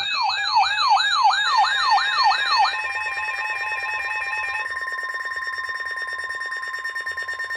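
Emergency alert attention tones: a siren-like yelp sweeping down in pitch about three times a second over an alternating two-note beep. About three seconds in it changes to a steady two-tone alarm.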